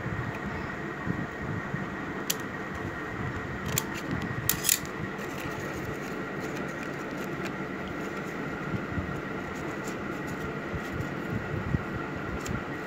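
Scissors snipping paper: a few sharp snips between about two and five seconds in, the loudest near five seconds, over a steady background hum.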